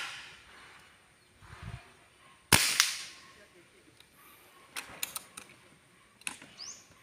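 An air rifle fires a single shot about two and a half seconds in, a sharp crack with a brief echo. A few light clicks follow later on.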